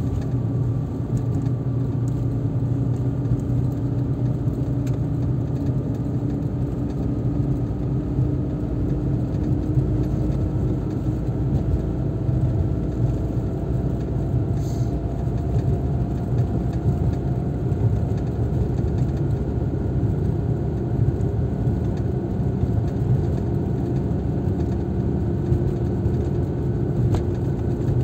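Car driving on the road: steady engine and tyre noise, the engine's tone rising slowly as the car gathers speed.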